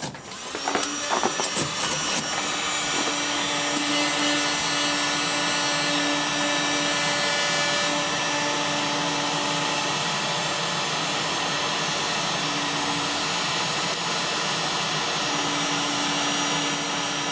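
LooftLighter electric charcoal starter running, its fan blowing hot air into lump charcoal to light it: a steady whoosh with a hum through it. It starts about half a second in and settles to a steady level by about two seconds.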